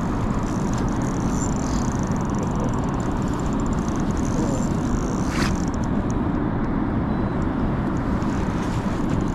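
A boat's motor running steadily, a constant low rumble, with one short click a little past five seconds in.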